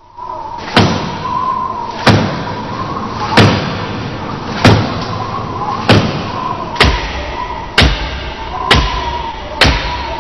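A series of heavy thuds, about one a second and coming slightly faster towards the end, over a steady hiss with a faint held tone.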